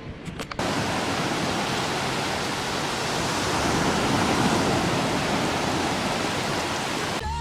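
Steady, loud rushing noise like running water or strong wind, starting abruptly about half a second in after a few clicks.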